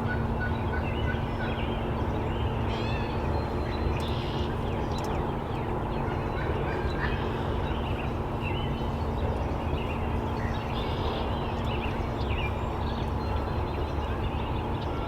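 Wild turkeys calling, with many short calls scattered through, over a steady low background noise.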